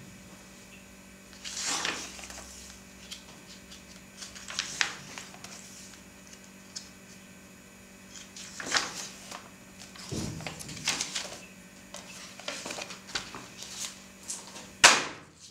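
Glossy magazine pages being turned and rustled on a wooden table, several times, over a faint steady hum. Near the end a magazine is dropped onto the table with a sharp slap, the loudest sound.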